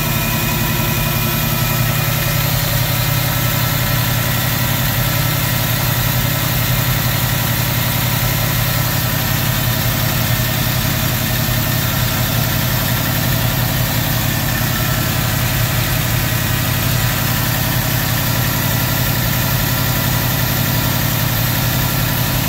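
Fox Body Mustang V8 idling steadily, its drive belt and alternator pulley spinning, with the idle held by a newly fitted GM-style four-wire stepper idle air control valve.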